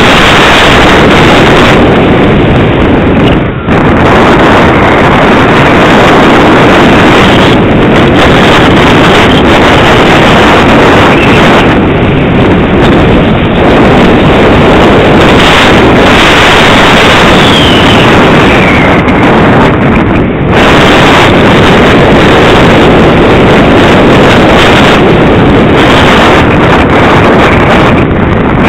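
Loud, steady wind rush on the onboard camera microphone of an EasyStar II RC plane in flight, briefly easing twice.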